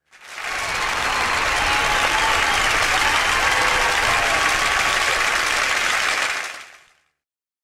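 A crowd applauding: dense, steady clapping that swells in over the first second and fades out near the end.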